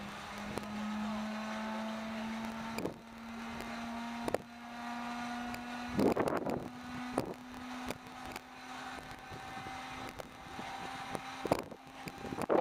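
A steady whine from the T-6 Texan's starter, rising slowly in pitch as it winds up before the engine turns over, typical of an inertia starter being energized. Several sharp clicks and a short loud burst of noise about six seconds in.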